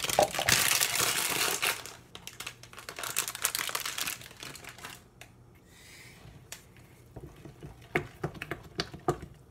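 Crinkling and rustling as items are moved aside on a kitchen counter, loudest in the first four seconds, then a few sharp knocks and clicks near the end.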